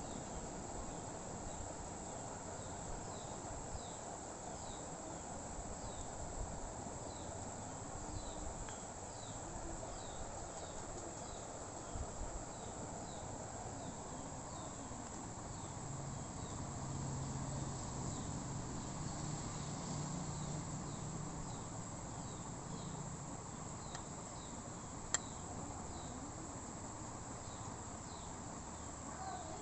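An insect chirping steadily: short, evenly spaced chirps a little over one a second, over a low steady hiss. A single sharp click near the end.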